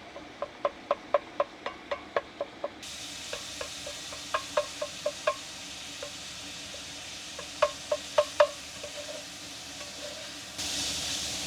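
Ground beef sizzling as it browns in a frying pan, with a utensil repeatedly tapping and scraping against the pan as it is stirred. The sizzle gets louder about three seconds in and again near the end.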